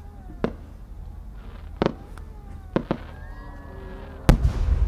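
Large Japanese spherical firework shell (warimono chrysanthemum): a few short sharp pops, then one loud boom about four seconds in as the shell bursts, with a low rumble after it.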